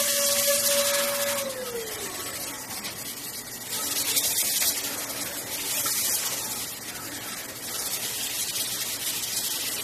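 CNC milling machine cutting an aluminium part under flood coolant: a hiss of coolant spray and cutting that swells and fades. A steady machine tone holds for the first second or so, then slides down in pitch.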